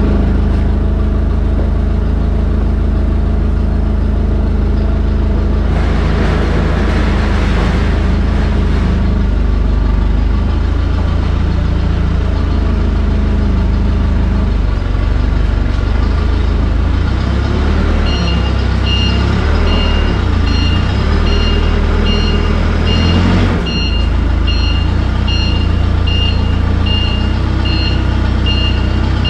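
A truck engine running steadily. About two-thirds of the way through, a reversing alarm starts beeping at an even pace, about one beep a second.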